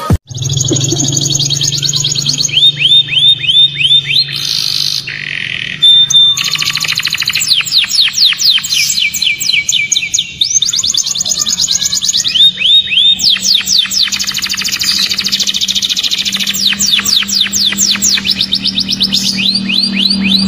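Domestic canary singing: fast rolling trills of rapidly repeated sweeping high notes, switching between rolls of different speed and pitch every few seconds. A low steady hum runs underneath.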